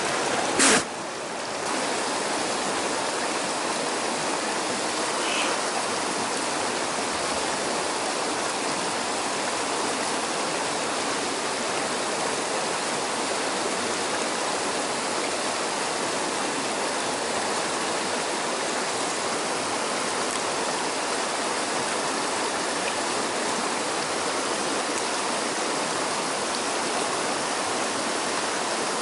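Mountain stream rushing over rocks in small rapids, a steady rush of water, with one brief loud knock just under a second in.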